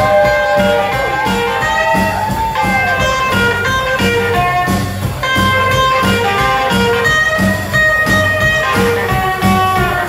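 Live rockabilly band playing an instrumental break: an electric guitar solo, with bent notes sliding up and down in the first few seconds and then quick single-note runs, over a steady upright bass pulse.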